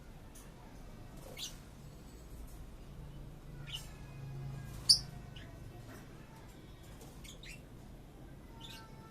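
Pet budgerigar and lovebird giving short, sharp high chirps and squeaks, about one a second, the loudest just before five seconds in.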